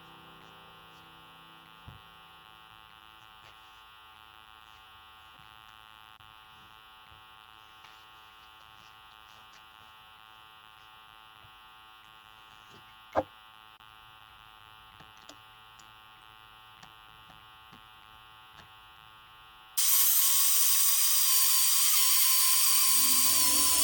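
Faint steady electrical hum with a few small clicks and one sharp click, then about 20 seconds in an electric chainsaw starts suddenly and runs loudly with a high whine.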